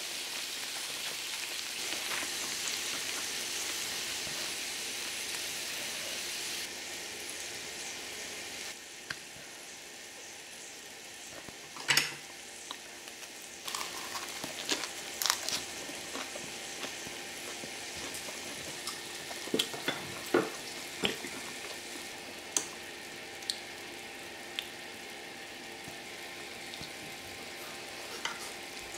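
Pork belly and shrimp sizzling on an electric grill pan, a steady hiss that drops in level in two steps, about seven and nine seconds in. Scattered sharp clicks and taps sound over it, mostly in the second half.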